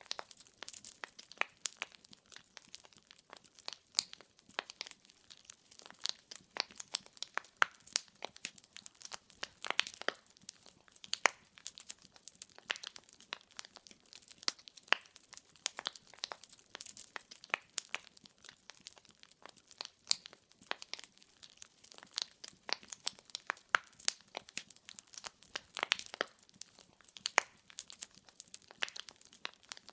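Firewood burning in a fireplace, crackling with a steady stream of irregular sharp pops and snaps.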